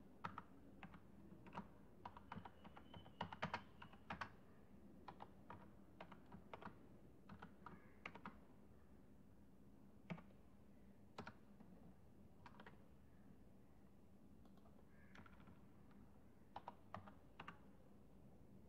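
Faint computer keyboard typing: quick runs of key clicks through the first half, then a few single clicks and a short final run near the end. A faint steady hum runs underneath.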